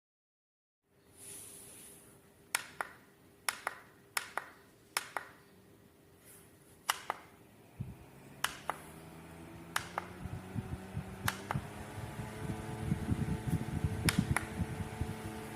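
Plastic button clicks on a Sendowtek rechargeable solar camping fan, many of them in quick pairs, then the fan motor starting about halfway through and spinning up with a rising hum and a growing rush of air.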